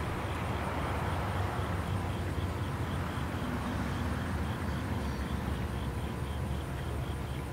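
Outdoor ambience: a steady low rumble of background noise with a faint, regular high-pitched chirping about four times a second.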